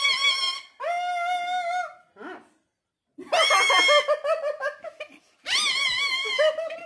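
Pet parrot calling from its cage in several high-pitched, drawn-out calls of about a second each, mixed with women laughing hard.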